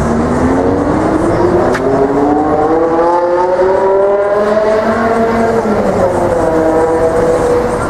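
Articulated city bus accelerating through a turn, its engine note rising steadily in pitch for about five seconds and then easing off slightly, over the hum of street traffic. A single sharp click sounds about two seconds in.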